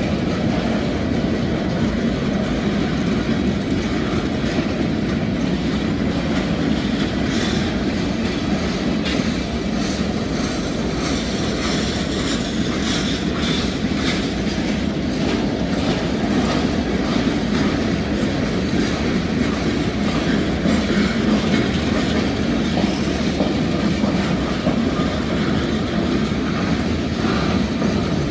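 Freight cars of a Norfolk Southern manifest train rolling past steadily, a loud even rumble of wheels on rail. A run of sharp clacks comes about eight to fifteen seconds in.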